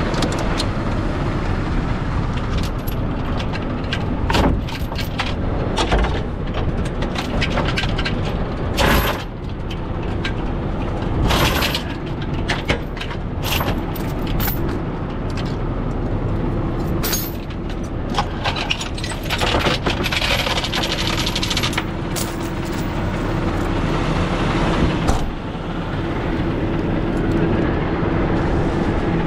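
Heavy rotator tow truck's diesel engine idling steadily, with scattered metal clanks and chain rattles through the first two-thirds, fewer near the end.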